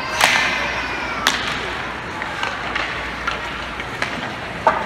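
Sharp cracks of hockey sticks and puck during ice hockey play: three of them, the loudest just after the start, another about a second in and one near the end, over a steady murmur of rink crowd noise.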